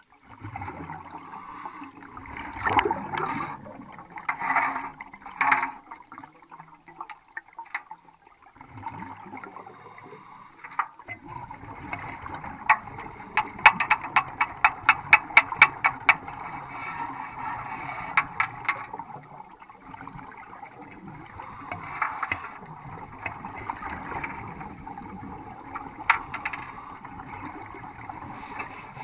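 Welding arc crackling and spitting in irregular bursts, with a quick run of sharp ticks about halfway through.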